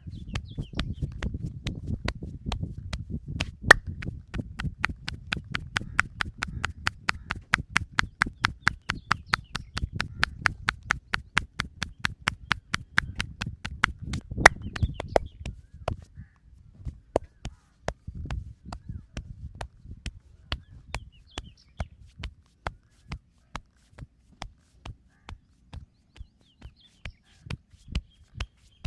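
Percussive massage: hands striking a body in quick, evenly spaced slaps or taps, about three to four a second, louder in the first half. A low rubbing rumble sits under them until about halfway through.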